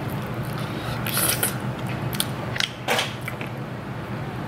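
Cooked king crab shell cracking and snapping as it is pulled apart by hand, with wet picking at the meat. It comes as a crackling burst about a second in, then several sharp snaps a little before three seconds in.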